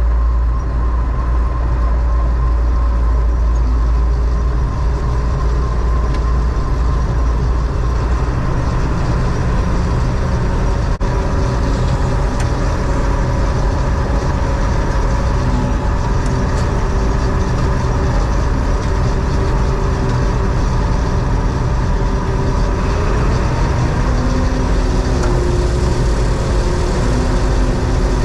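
John Deere 4400 combine running steadily, a continuous loud engine rumble; the deepest part of the rumble eases about eight seconds in.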